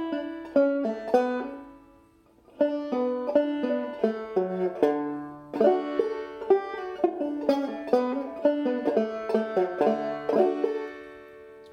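Wayne Sagmoen 11-inch walnut banjo with a goatskin head, played clawhammer style: a short run tag for ending a tune in double D tuning. A few plucked notes, a brief pause about two seconds in, then a run of notes that rings out near the end.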